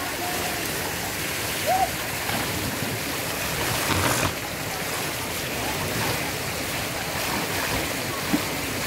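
Water splashing and sloshing steadily as people wade and splash through a shallow swimming pool, with a brief faint voice about two seconds in.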